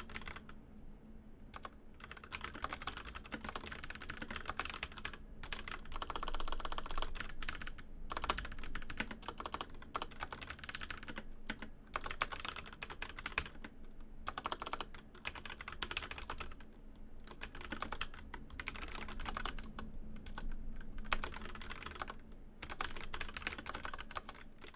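Fast typing on a Razer BlackWidow Elite mechanical keyboard with Razer Orange tactile switches: a dense run of key clacks, stopping briefly now and then, with the longest pause about half a second in.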